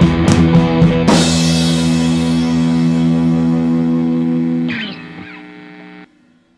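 Background rock music with electric guitar: drum hits up to about a second in, then a final held chord that rings out, drops away near five seconds and cuts off about six seconds in.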